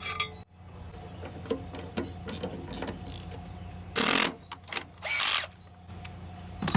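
Tools working on a push mower's blade bolt: scattered metallic clicks and ticks, then two short loud bursts of tool noise about a second apart.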